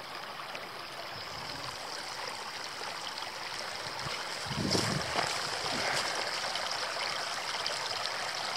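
Creek water trickling and gurgling through a beaver dam, a steady rush that gets a little louder about halfway through. A brief low thump comes near the middle.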